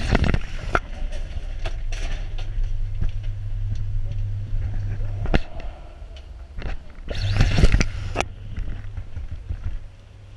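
Scuffing, rubbing and knocking noise from handling a covered camera, over a steady low hum. The hum drops out about five seconds in and comes back a couple of seconds later. The loudest scuffs come at the start and again about seven to eight seconds in.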